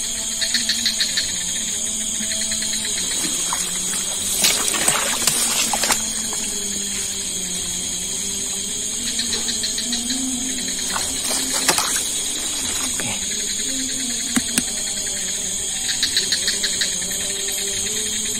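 Night swamp ambience: a steady high-pitched insect chorus, with a rhythmic trill coming in three times. Two louder bursts of noise stand out, about four and a half and eleven seconds in.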